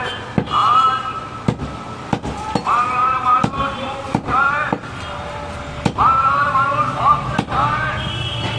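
A heavy butcher's blade chopping through goat meat and bone on a wooden chopping block: a string of sharp, irregularly spaced chops. Voices carry on behind it.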